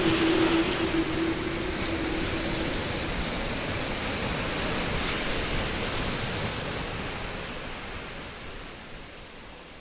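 Baltic Sea surf: small waves breaking and washing up a sandy beach in a steady rush of noise, fading out over the last few seconds. A held low tone dies away in the first three seconds.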